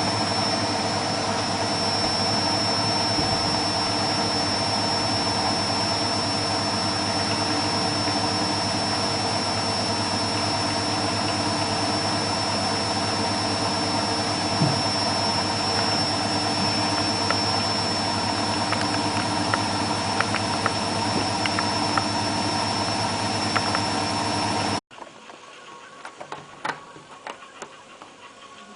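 Beko WMA642 front-loading washing machine on a high-speed spin: a steady motor-and-drum hum with a high-pitched whine, holding a constant pitch. It cuts off suddenly near the end, leaving only faint clicks.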